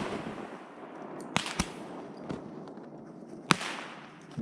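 Fireworks going off: a string of sharp bangs, the loudest about three and a half seconds in.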